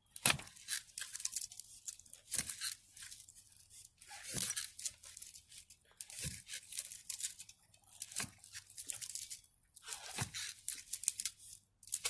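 A fence post hole being dug by hand: a digging tool struck into packed dirt about every two seconds, six times, each stroke a dull thump followed by crunching and scraping of soil.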